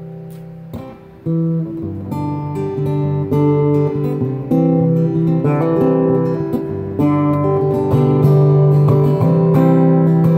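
Acoustic guitar played through a Yamaha Stagepas 600i PA system with a little plate reverb. A chord rings out and fades, then about a second in the playing starts again with a steady run of picked chords and melody notes.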